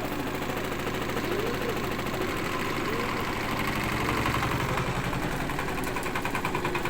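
Washing machine running with violent vibration, the cabinet rattling and knocking in a fast steady rhythm over the motor's hum.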